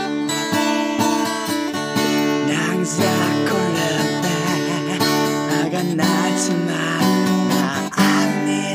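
Music: an instrumental passage led by strummed acoustic guitar, with fresh attacks about once a second.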